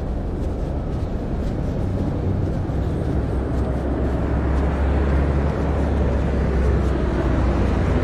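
Road traffic passing on a busy street: a steady hum of tyres and engines that grows louder in the second half as a vehicle comes close.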